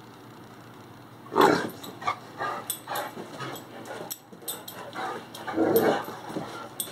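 English Mastiff making a string of short vocal sounds as it spins in circles: a loud one about a second and a half in, quicker shorter ones after it, and another loud run near the end. Light clicks come in between.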